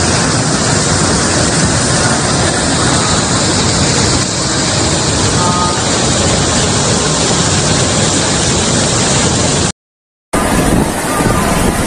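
Floodwater and a waterfall in spate rushing, a loud, dense and steady water noise. It cuts to silence for about half a second around ten seconds in, then the rushing resumes.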